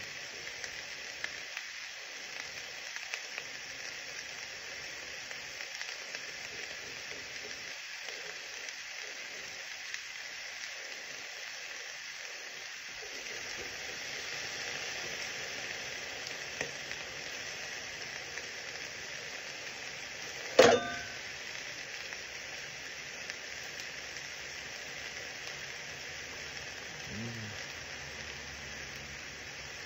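Ham and chopped vegetables frying in a stainless steel skillet: a steady sizzle, with one sharp clack about two-thirds of the way through.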